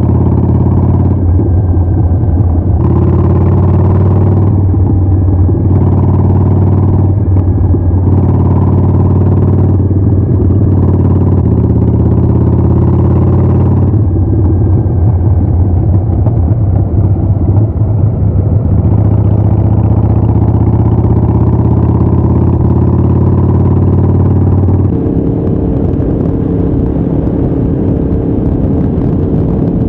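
Motorcycle engine running steadily, its note dipping and shifting every few seconds as the throttle changes. About 25 s in the sound changes abruptly to a steadier, higher note, a little quieter.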